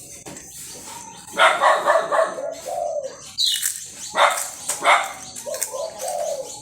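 Birds chirping, with a dog barking several times among the calls.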